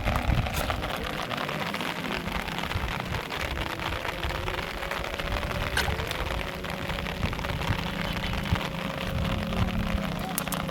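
Rain falling steadily, a dense patter of drops, with a faint low hum underneath.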